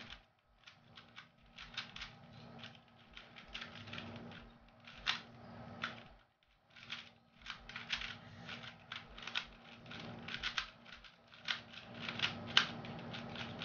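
A 2x2 Rubik's cube being turned fast during a timed speed-solve, its plastic layers clicking in quick irregular runs. There are brief pauses about half a second in and around six seconds in.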